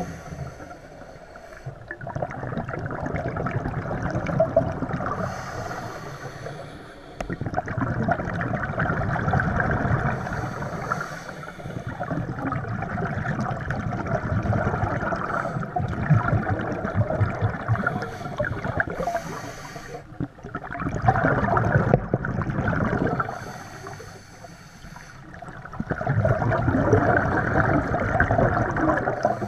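Scuba regulator breathing underwater. Each exhalation sends out bubbles that gurgle for several seconds, with short hissing inhalations in the quieter gaps between them.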